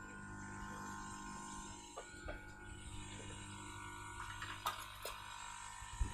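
Steady hum and whine of bench rework equipment running while a MOSFET is desoldered from a laptop mainboard, with a few light clicks of tools against the board, the sharpest near the end.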